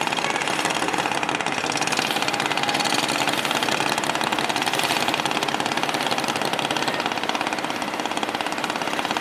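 Boat engine running steadily with a fast, even clatter.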